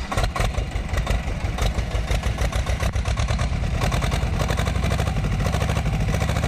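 Tractor diesel engine running at idle, heard at the vertical exhaust stack. The rapid firing pulses are uneven for the first three seconds or so, then settle into a steady idle.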